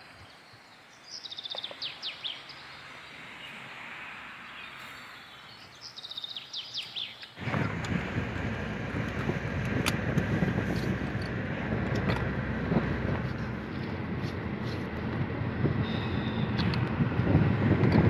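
Birds chirping in two short bursts of quick falling notes over a quiet outdoor background. About seven seconds in this cuts suddenly to a louder, steady rush of a vehicle travelling on the road, with wind noise.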